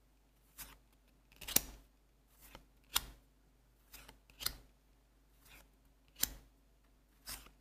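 Trading cards being flipped through one at a time by hand, each card giving a short, sharp snap, about once a second.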